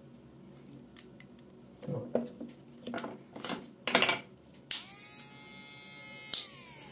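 WMARK hair clipper motor, run with the blade off, switched on about two-thirds of the way through: it spins up to a steady hum with a high whine. A click comes near the end and the pitch falls as the motor runs down. Before it, scattered plastic clicks and knocks of the clipper body being handled.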